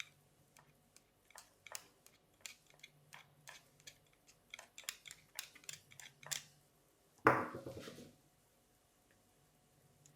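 Small sharp clicks and taps of metal reel parts and tools being handled while a spinning reel is taken apart, then a louder scraping rattle lasting about a second with a falling tone.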